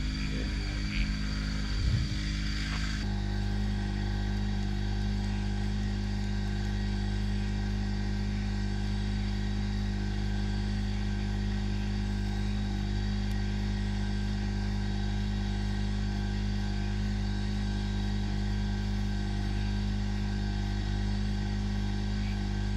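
Campsite generator (genset) running steadily, a constant noisy engine drone with a low hum. A couple of light knocks come in the first two seconds.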